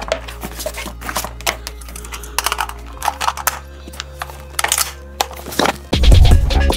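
Cardboard box being opened and an airsoft rifle lifted out of its foam packing: a run of clicks, taps and rustles over quiet background music, which gives way to loud intro music about six seconds in.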